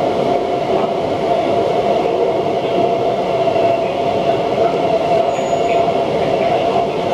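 Cabin noise of a Kinki Sharyo–Kawasaki SP1900 electric train running in a tunnel: a steady rumble of wheels on rail with a constant hum.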